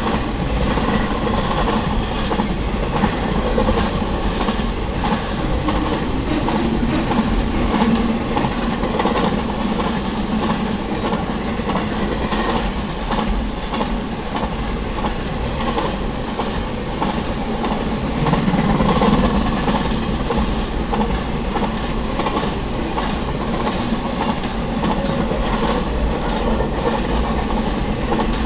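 Double-stack container cars rolling past: a steady rumble and clatter of steel wheels on the rails. It grows louder for a couple of seconds about two-thirds of the way through.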